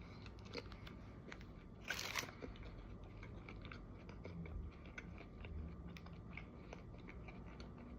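A person biting into and chewing a McDonald's McChicken sandwich, heard close up as faint mouth clicks throughout, with a louder crunch about two seconds in.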